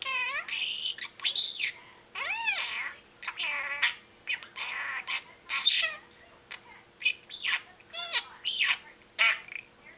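Pet budgerigar chattering: a fast run of warbles, chirps, clicks and whistled pitch glides. Mixed in are talking-budgie mimicked words in a tiny buzzy voice, which the owner hears as "okay", "come here" and "pick me up, me up, me up".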